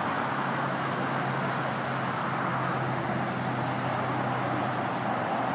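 Steady rushing noise of fast-flowing floodwater mixed with road traffic on the adjacent highway, with a low steady hum through most of it.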